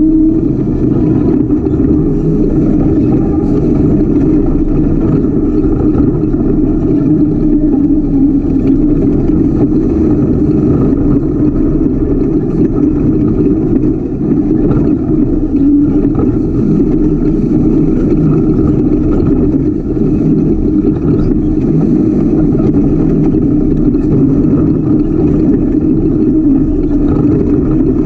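Ultra4 off-road race car's engine running steadily under load, loud and close, heard from a camera mounted on the car as it drives.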